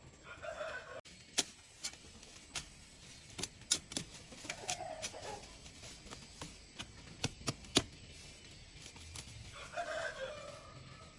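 Chickens calling three times, a few seconds apart, with scattered sharp clicks in between.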